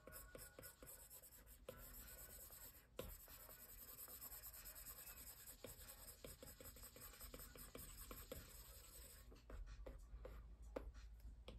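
Faint, quick scratching strokes and light taps of a stylus tip on an iPad's glass screen during hatching.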